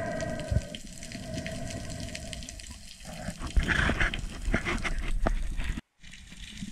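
Seawater sloshing and splashing around a camera at the sea surface, with small splashes growing busier about halfway through. A steady humming tone runs through the first few seconds, and the sound cuts out for a moment near the end.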